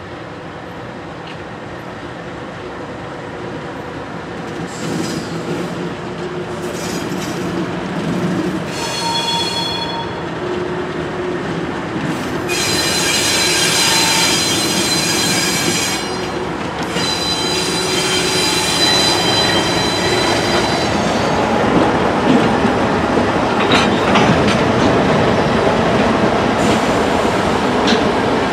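ALCo RS32 diesel locomotives running as they pull a freight train past, growing louder as they approach. High-pitched wheel squeal from the train on the curving yard track comes and goes in several spells through the middle.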